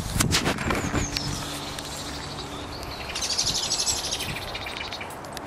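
Small songbirds in a hedgerow: a few short falling chirps about a second in, then a fast high trill from about three seconds in lasting over a second. A few knocks and rustles sound in the first second.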